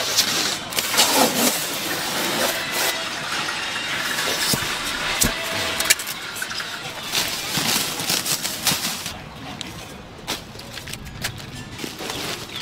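A polystyrene foam cooler being opened and its plastic liner bag rustled and crinkled, in a run of short scraping and crackling handling noises that thin out after about nine seconds.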